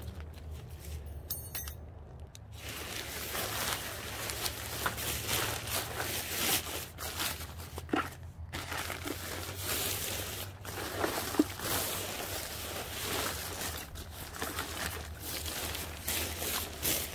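Thin nylon fabric of a deflated Christmas inflatable crinkling and rustling as it is unfolded and spread out by hand, with irregular crackles and one sharper crinkle near the middle.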